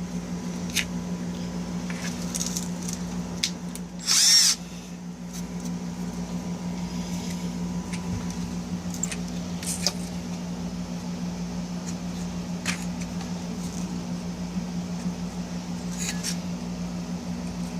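Power drill running steadily while drilling out the rivets that hold parts to a Hallicrafters S-38B radio's steel chassis, with scattered sharp clicks. About four seconds in, a brief loud high-pitched squeal.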